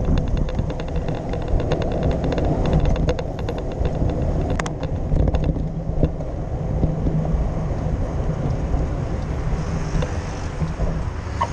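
Wind buffeting and low rumble on a handlebar-mounted camera while cycling, with a rapid even ticking through the first half and one sharp knock about four and a half seconds in.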